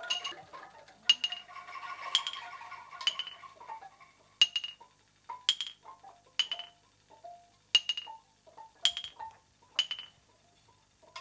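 Bamboo sound sculptures clacking in a steady rhythm, about one hollow, ringing knock a second, each followed by a few lighter taps. A held ringing tone dies away over the first few seconds.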